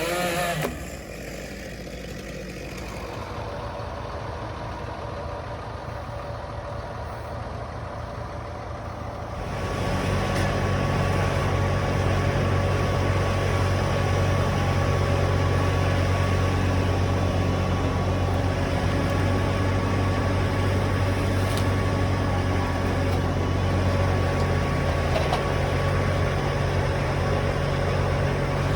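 Engine running steadily with a low, even pitch. It is quiet at first and grows much louder about nine seconds in, then holds steady, as of machinery working on a tree removal site.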